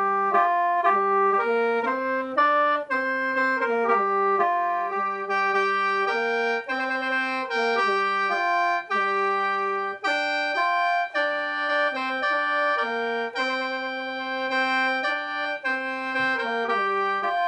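Khaen, the Lao free-reed bamboo mouth organ, played solo in the lai sao style. A melody moves over steady held notes, with several pipes sounding at once.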